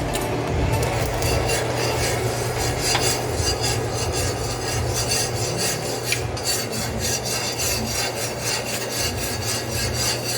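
A spoon stirring and scraping around the bottom of a cooking pot in a steady, continuous rhythm of fine scrapes, as sugar is browned for a curry stew.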